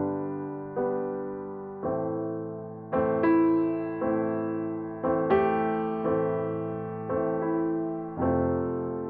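Slow piano music: chords struck about once a second, each ringing and fading before the next.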